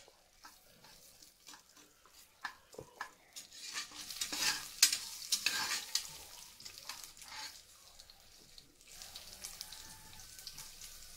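Crushed ginger, cumin seeds and black pepper frying in oil in a stainless steel pressure cooker, stirred with a metal spoon: a light sizzle with scrapes and clicks of the spoon against the pot. The stirring is busiest in the middle and eases off near the end.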